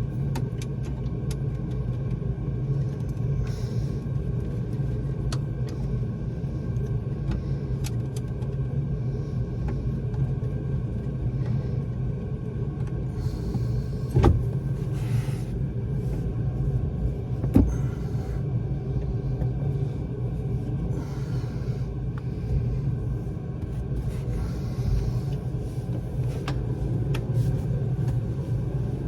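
A steady low mechanical hum runs under scattered small clicks and clinks of hand work with nuts and tools, with two sharper knocks about fourteen and seventeen seconds in.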